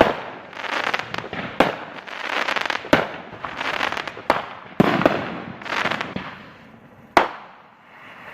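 Consumer fireworks going off in a quick series: about six sharp bangs, several of them followed by a second or so of crackling.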